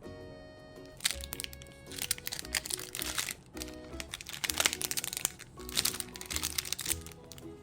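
Packaging crinkling and rustling in four bursts while items are handled and unwrapped, over background music.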